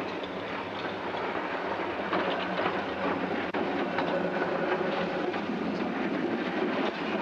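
Antwerp PCC tram running along street track, a steady rumble with faint clicking of the wheels on the rails.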